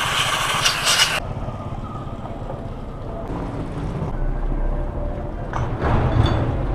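A loud hiss that cuts off suddenly about a second in, over a steady low engine hum that runs throughout, with a second, shorter hiss near the end.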